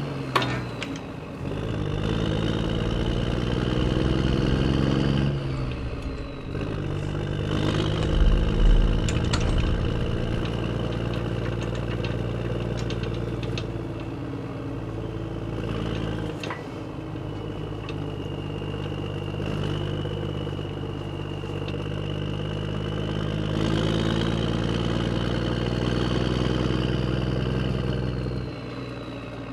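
Engine of a lifting machine running under load as it pulls up on a seized crankshaft, its revs shifting a few times with a high whine riding over it and a low thump about eight seconds in. The crank does not come free.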